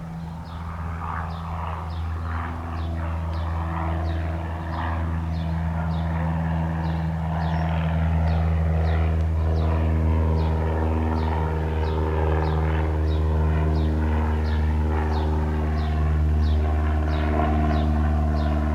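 A Cessna 172 Skyhawk's four-cylinder piston engine and propeller running at a steady pitch, growing louder over the first eight seconds, then holding. A high short chirp repeats about twice a second over it.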